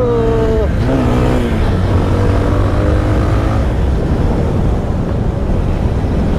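Bajaj Pulsar 220 motorcycle running steadily on the move, with its engine and road noise heard while riding.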